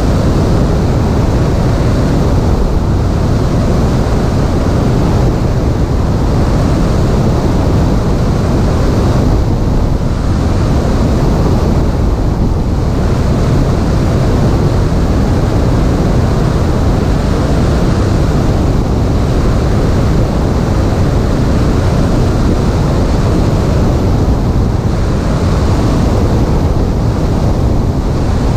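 Steady rush of airflow buffeting the microphone of a camera mounted on a Piper Cherokee's stabilator, with the light aircraft's engine and propeller beneath it.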